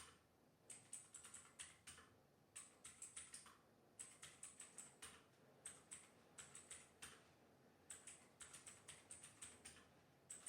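Typing on a ROBOT Workmate II mechanical keyboard fitted with OTM Blue tactile switches: faint, sharp key clicks in quick bursts of a few strokes, with short pauses between the bursts.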